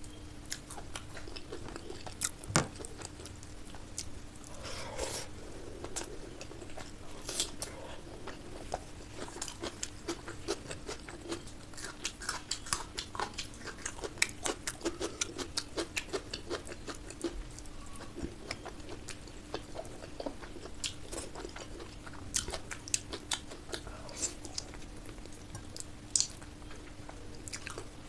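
Close-miked eating of curry and rice: chewing and wet mouth sounds, with many short irregular clicks and smacks. A steady faint hum runs underneath.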